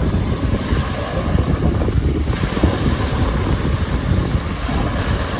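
Strong wind buffeting the microphone over lake waves washing onto the shore: a steady, rough, rumbling rush of noise.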